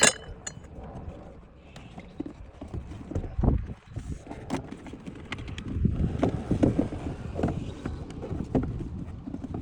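Irregular clicks, knocks and clatters of tools, screws and plastic parts being worked loose while dismantling a car's air-conditioning blower housing. A sharp click comes right at the start, a thump a few seconds in, and a busier run of knocks over the last few seconds.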